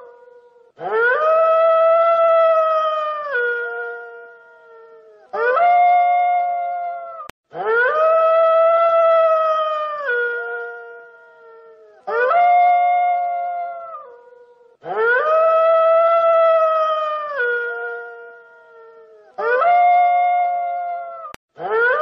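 A dog howling over and over: about seven long howls, each sliding up sharply at the start, held steady, then stepping down in pitch as it fades away.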